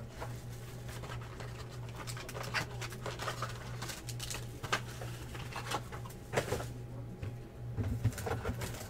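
Clear plastic shrink wrap crinkling and a cardboard card box being handled, in short scattered crackles and taps over a steady low hum.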